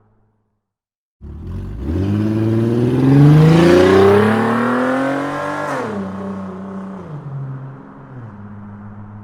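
Sports car engine starting about a second in, revving up steadily for about four seconds, then dropping back and settling into a steady idle.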